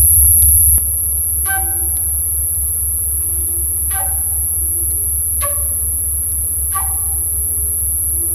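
Experimental electroacoustic music: a low steady drone and a high steady tone, under four short pitched notes that each ring briefly, spaced one to two seconds apart. A denser layer of sound cuts off just under a second in.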